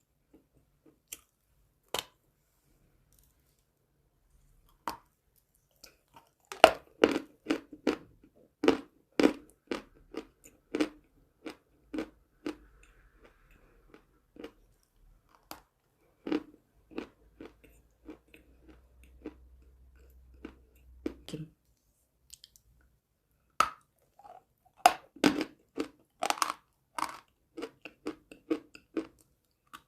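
Close-miked chewing of crunchy edible chalk. A few single crisp bites come in the first five seconds, then a long run of crunching chews until about 21 seconds in, a short pause, and crunching again from about 24 seconds on.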